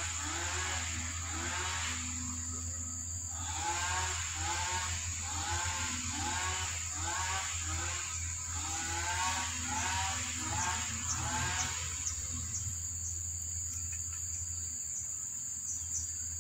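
A steady high-pitched insect trill over a low hum, with a run of short, evenly repeated animal calls, about two a second. The calls pause for about a second near the start and stop about twelve seconds in.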